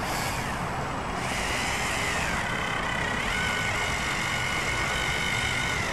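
Cordless caulking gun's electric motor whining as it drives a bead of urethane onto the replacement quarter glass. The whine starts suddenly, dips and rises in pitch a couple of times, holds steady, then cuts off near the end.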